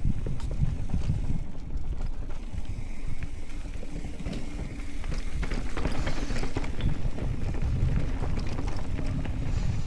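Mountain bike being ridden down a trail: wind buffets the microphone over the tyres rolling on dirt and rock. About halfway through, the bike's clatter and rattle gets busier.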